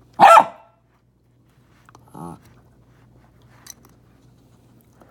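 A Jack Russell terrier gives one loud, sharp, high-pitched bark, then a short, low growl about two seconds later.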